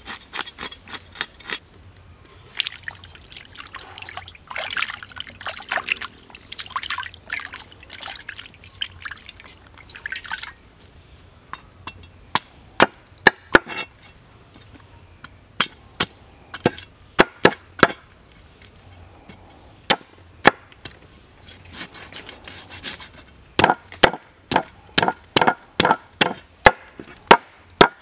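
A broad cleaver scraping the scales off a whole red fish on a wooden board: rasping scrapes at first, then a long run of sharp knocks of the blade on the board, coming faster near the end.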